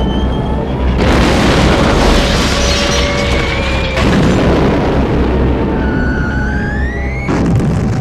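Air-raid sound effects: a continuous rumble of bomb explosions, with fresh blasts breaking in about one, four and seven seconds in. A siren's tone glides upward in pitch near the end.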